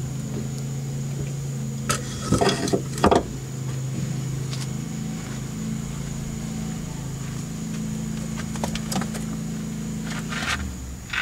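Metal tools or car parts clanking and rattling as they are handled, a cluster of clatters about two seconds in and again near the end, over a steady low hum that stops shortly before the end.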